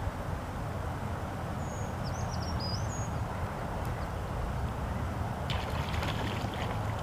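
A hooked trout splashing at the water's surface near the end, a quick cluster of splashes. Under it runs a low steady rumble, and there are a few short bird chirps about two seconds in.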